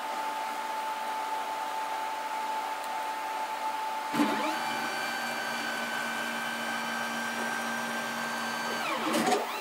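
Stepper motors of a home-built CNC router, 275 oz-in motors on a Chinese 4-axis driver board, homing the machine. A steady whine from the energised motors; about four seconds in, the pitch rises into a steady whine of several tones as an axis ramps up and traverses, then falls away as it slows near the end, with a short louder burst.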